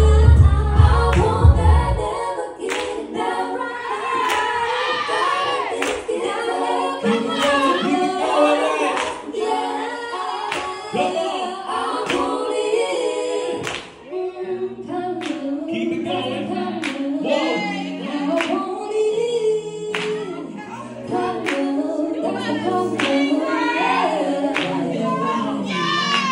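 Woman singing a soul/R&B song live through a microphone and PA, a mostly unaccompanied passage: the heavy bass of the accompaniment cuts out about two seconds in, with only soft low tones under the voice later on. Scattered sharp claps sound along with the singing.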